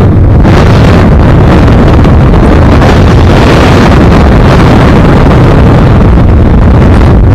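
Loud, steady freefall wind buffeting a skydiver's camera microphone, with the noise heaviest in the low rumble.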